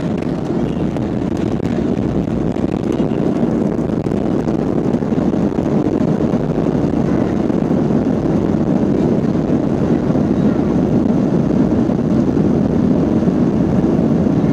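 Cabin noise of a Boeing 737-800 rolling out on the runway after touchdown: a steady, dense rumble of the CFM56 engines, airflow over the raised spoilers and wheels on the runway, growing a little louder toward the end.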